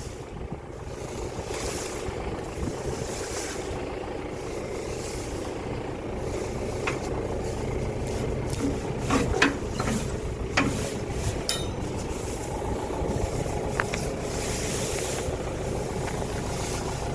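Tractor engine running steadily while a plugged forage harvester is being cleared, with a few short knocks and clanks and a brief rattle about eleven seconds in.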